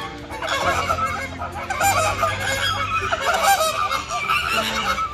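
A flock of birds honking and calling over one another, many short wavering calls overlapping without a break.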